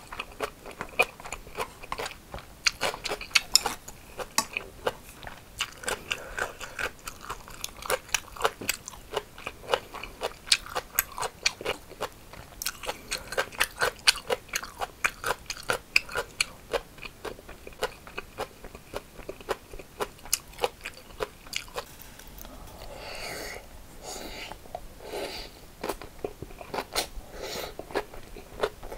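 Close-up chewing of crunchy cucumber bibimbap: fast, crisp crunches of raw cucumber being bitten and chewed, mixed with wet mouth sounds. The crunches thin out for a few seconds near the end.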